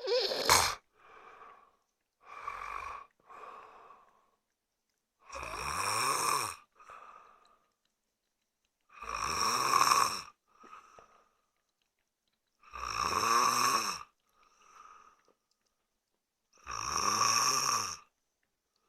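A man snoring in his sleep: four loud, rasping snores at an even pace, about one every three and a half to four seconds, each over a second long and followed by a quieter, shorter sound. A few weaker snores come before them in the first few seconds.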